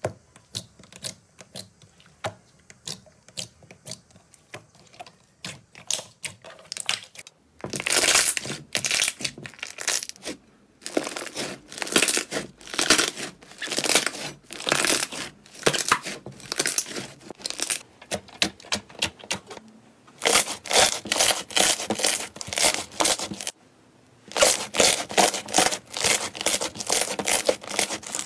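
Slime being pressed and kneaded by hand, a dense run of sticky crackles and small air-bubble pops. It is quieter for the first several seconds, then louder, with a couple of brief pauses.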